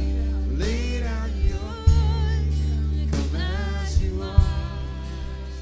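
Live worship band playing a slow song: acoustic and electric guitars, bass and keyboard under a singer holding long, wavering sung notes, with a few strummed chords.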